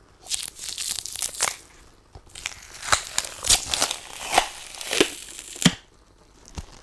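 Sticky lint roller sheet crackling and peeling in a series of irregular bursts, with brief pauses between strokes.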